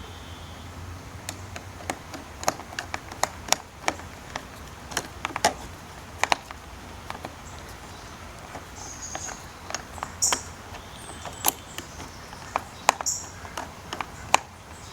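Small metal parts of an electronic deadbolt lock being handled and fitted: irregular sharp clicks and light metallic clinks, several of them in quick runs.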